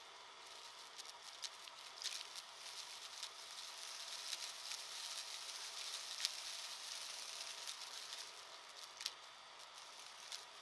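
Upright vacuum cleaner picking up dry debris from carpet: a muffled, steady hiss of suction with faint motor tones, peppered with crackles and sharp clicks of bits being sucked up, the loudest click about six seconds in.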